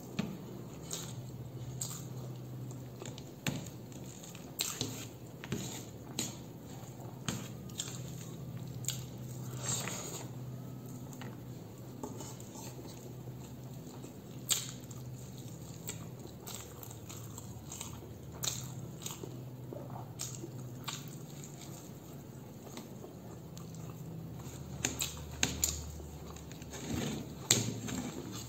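Close-up eating sounds: a person biting and chewing food, with irregular wet clicks and smacks of the mouth, a few louder ones near the end.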